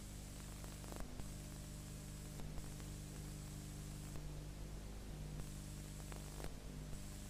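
Steady electrical hum with an even hiss and a few faint clicks: the background noise of the recording, with no other sound.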